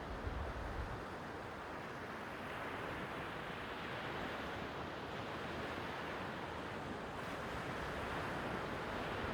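Sea waves washing on the shore: a steady hiss that swells gently, with a low wind rumble on the microphone in the first second.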